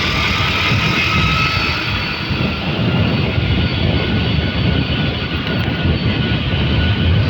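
Steady drone and rush of a moving vehicle's engine and air noise.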